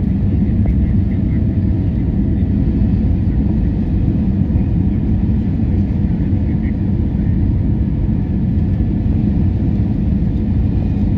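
Airliner cabin noise during the descent to land: a steady low rumble of engines and rushing air heard from inside the passenger cabin.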